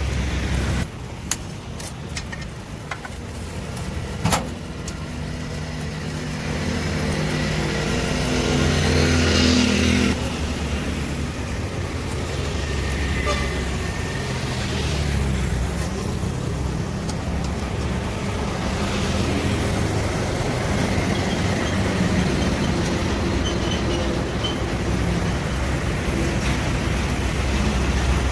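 Street traffic noise: a steady low rumble of motor vehicles, with one engine humming for several seconds before cutting off suddenly about ten seconds in.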